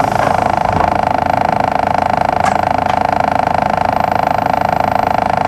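A steady electronic buzzer tone with a fast flutter, heard inside a stopped bus.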